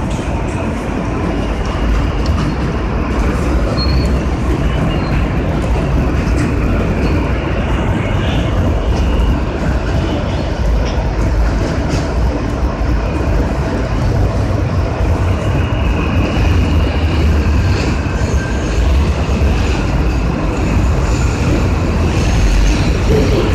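R160A-1 New York City subway train running along the track, heard from inside the front car: a steady rumble of the wheels on the rails, with a faint high whine now and then.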